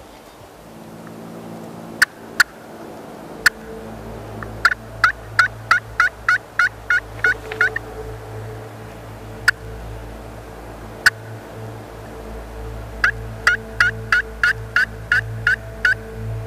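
Turkey call worked to sound like a hen. It gives a few sharp single clucks, then a run of about a dozen quick yelps at roughly three a second. Two more single clucks follow, then a second run of yelps near the end, calling to coax a tom to gobble.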